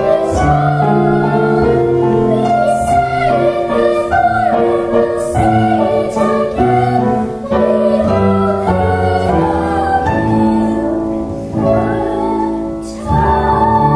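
A group of young girls singing a song together, with instrumental accompaniment underneath.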